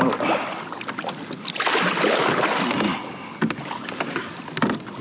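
Hooked jack crevalle thrashing at the surface beside a kayak: water splashing, loudest for about a second and a half near the middle, with scattered small knocks.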